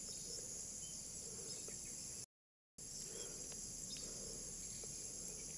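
Steady high-pitched drone of insects such as crickets in the fields, with faint ticks and chirps. The sound cuts out completely for about half a second around two seconds in.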